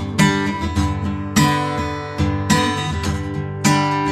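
Background music: strummed guitar chords, a new chord struck about once a second, with no singing in this stretch.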